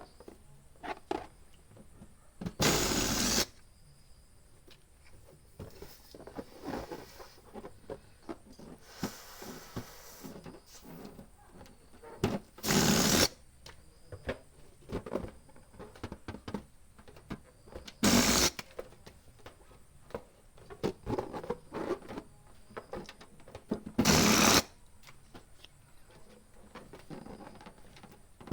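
Balloon pump blowing air in short hissing strokes, four bursts under a second each, several seconds apart, with a fifth starting at the very end. Between them come soft rubbery rustles and clicks of balloons being handled.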